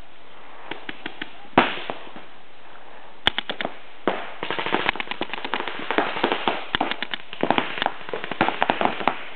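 Paintball markers firing. A few scattered shots come first, then from about four seconds in, rapid strings of several shots a second.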